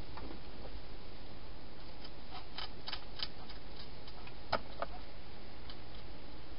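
Wild hedgehog crunching dry food, a scatter of small sharp clicks about two seconds in and two louder ones just past the middle, over a steady hiss.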